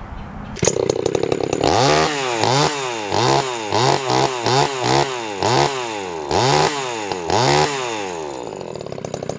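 Vintage Craftsman two-stroke chainsaw engine running, its throttle blipped over and over so the engine revs up and drops back about nine times, then settling back to idle near the end.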